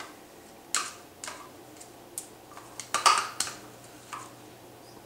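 Irregular sharp clinks and clicks of a metal spoon against a ceramic bowl while balsamic vinegar is poured into a seasoning paste, the loudest about three seconds in.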